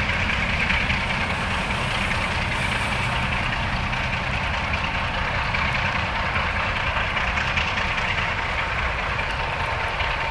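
Two Electroputere LDE2100 (ST43) diesel-electric locomotives running under power, their Sulzer twelve-cylinder diesel engines giving a steady deep drone as they haul a freight train.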